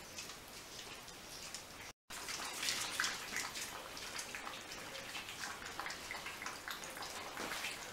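Several puppies eating dry kibble from a metal bowl, then, after a cut about two seconds in, lapping water from a bowl: a dense run of small wet clicks and laps.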